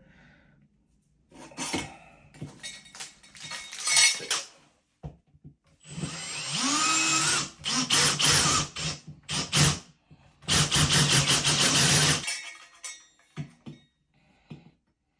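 Power drill running in two bursts, the first about six seconds in, its pitch rising as it spins up, and the second near eleven seconds, boring or driving a screw into a wall stud to mount a grab bar. Light clicks of handling come before the bursts.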